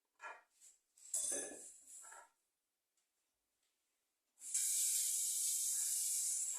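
A few short soft rustles, then about four and a half seconds in a loud steady hiss starts and keeps going.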